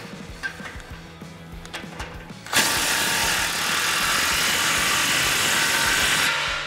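Cordless 3/8-inch impact gun with a 15 mm socket tightening an exhaust clamp nut: it starts about two and a half seconds in, runs loud and steady for nearly four seconds, then stops. A few light clicks of the socket on the clamp come before it.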